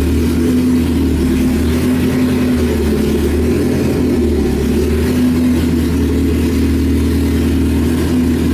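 1995 Honda Civic's four-cylinder engine idling steadily.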